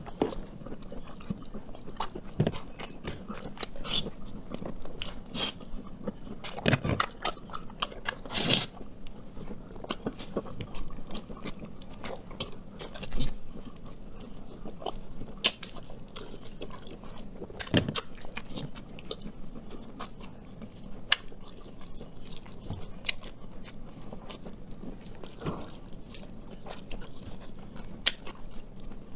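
A person eating close to the microphone: biting and chewing with many irregular sharp clicks and wet smacks, a few of them louder.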